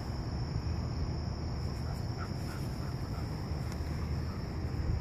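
Low, steady rumble of wind on the microphone under a steady high-pitched insect drone, with a few faint chirps about two seconds in.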